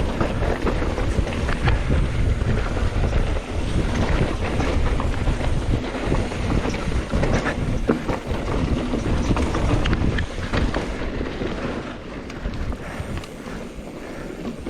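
Wind buffeting the microphone of a mountain bike descending a rocky trail, with tyres rolling over dirt and rock and the bike rattling and clicking over bumps; the wind eases a little near the end.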